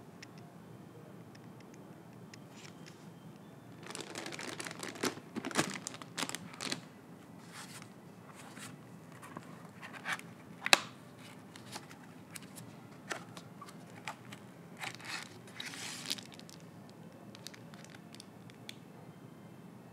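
Plastic wrapping and an anti-static bag crinkling and rustling as packaging is handled, in bursts, with scattered clicks and taps. A single sharp tap about halfway through is the loudest sound.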